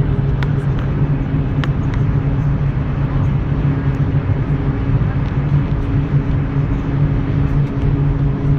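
Steady low cabin drone of an Airbus A380 taxiing after landing, heard from inside the passenger cabin, with a few faint ticks.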